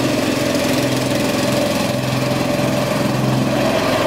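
Small petrol engine of a garden machine running steadily at a constant speed.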